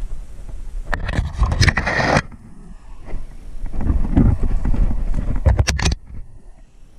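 Footsteps on rocky, leaf-littered ground and branches brushing against clothing and the camera while walking through brush, with rough handling and wind noise on the microphone in two loud stretches broken by sharp snaps and clicks.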